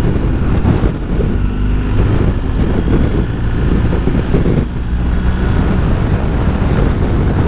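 BMW R1250GS Adventure's boxer-twin engine running steadily as the bike is ridden, with a low hum under wind rushing over the microphone.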